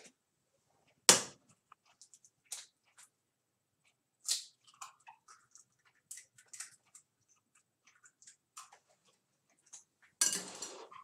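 Scattered clicks and knocks of a cooking utensil against a frying pan while eggs are scrambled, the loudest about a second in, with a rougher scraping stir starting near the end.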